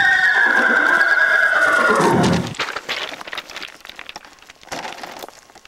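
A horse whinnying: one long neigh that starts high and falls in pitch, ending about two and a half seconds in. Faint scattered clicks follow.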